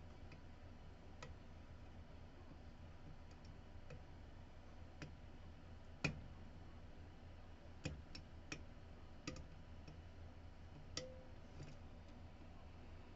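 Faint, scattered metallic clicks of lock picks working the pins of a DOM RS8 lock cylinder, the loudest about six seconds in and a quick cluster around eight to nine seconds.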